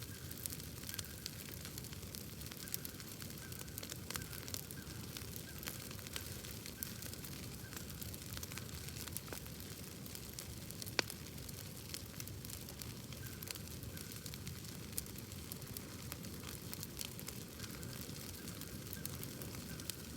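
Wood bonfire crackling: irregular small pops and snaps over a steady low rush of burning, with one sharper pop about halfway through.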